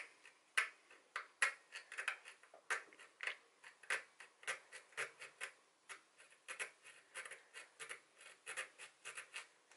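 A bare hacksaw blade, held by hand, scraping in short quiet strokes across the head of a small M3 reservoir cap bolt, about two to three strokes a second. It is cutting a screwdriver slot into the bolt because its Allen socket has rounded out.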